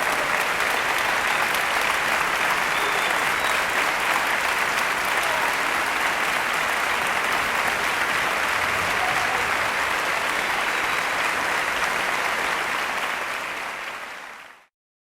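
Large crowd applauding steadily, fading out over the last couple of seconds and then stopping.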